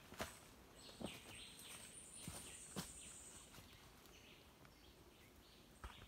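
Quiet forest ambience with a few footsteps on dry leaf litter and twigs, heard as separate crunches and snaps. A high, thin steady note sounds from about a second in until past the middle, with soft calls in the background.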